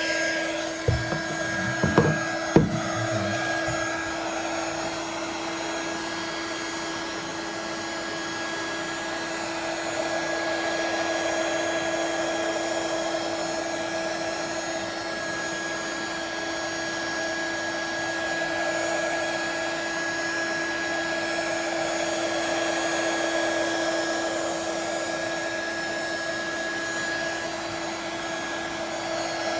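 Hot air gun blowing steadily, heating the phone to soften its old adhesive: an even rush of air with a constant tone over it. A few light knocks in the first three seconds.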